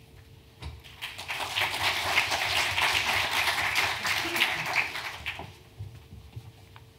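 Audience applauding: many hands clapping, starting about a second in and dying away after about five seconds.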